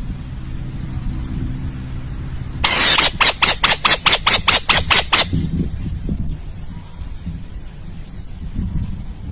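An owl's harsh, hissing screech: one long rasp breaks into a fast series of about ten raspy pulses, some five a second, lasting a couple of seconds. It is the loudest sound here.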